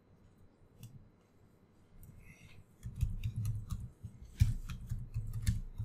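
Typing on a computer keyboard: quick runs of keystrokes, each a short click with a dull thump, starting about three seconds in after a quiet stretch with a few faint clicks.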